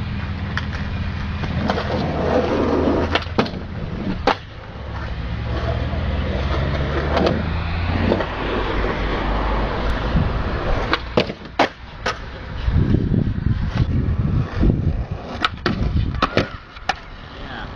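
Skateboard wheels rolling on a hard skatepark surface, with a steady low rumble broken by a dozen or so sharp clacks and knocks from the board popping, landing and sliding on boxes and rails.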